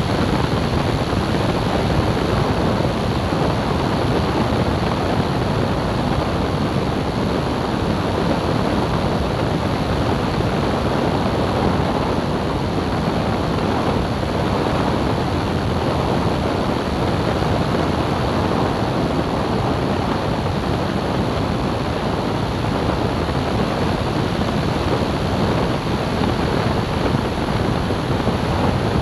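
Steady rush of airflow and engine noise from a light airplane on final approach, with wind buffeting the microphone.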